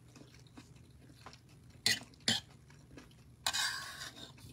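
Eating at a plate: a metal fork clicks twice against the plate about two seconds in, then scrapes across it near the end, over faint chewing.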